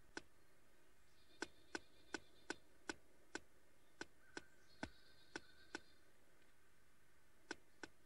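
Pileated woodpecker pecking at a tree branch: single sharp taps of bill on wood at an uneven pace, mostly two or three a second, about fourteen in all, with a pause of nearly two seconds before the last two.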